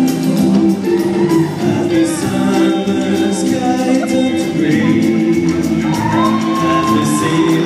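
A live band of electric guitars, bass, drums and keyboards playing, with a man singing over it.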